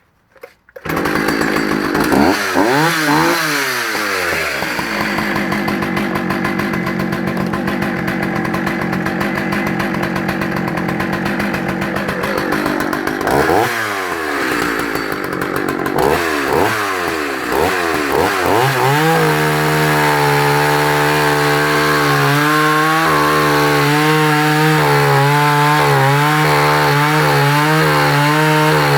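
Partner Farmsaw F55 55 cc two-stroke chainsaw starting about a second in and running at idle, revved up and down a few times. From about two-thirds of the way through it is held at full throttle with a wavering pitch as it cuts into a log.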